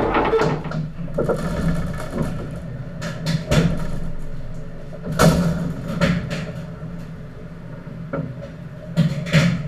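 Engine running with a steady low hum under irregular sharp clanks and knocks of metal, as a small diesel shunter locomotive is moved on a lorry's tilted bed and ramps.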